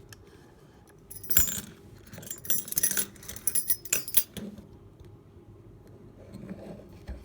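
Metal clinking and jangling as lock picks and a padlock are handled, a quick run of sharp metallic clicks and rattles between about one and four and a half seconds in.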